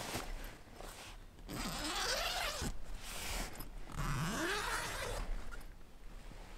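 Canvas tent door zipper being pulled open in two strokes of about a second each, a couple of seconds apart, each a rasping zip that glides in pitch.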